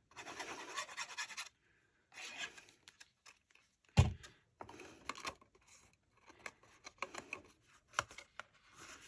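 Craft paper rustling and rubbing as it is handled while liquid glue is applied to the bag's base, with small clicks and one sharp knock on the table about four seconds in.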